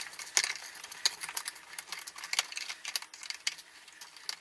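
Irregular small clicks and metallic clinks as a push-button light switch, with its wires, is pushed into the wall box and screwed in place.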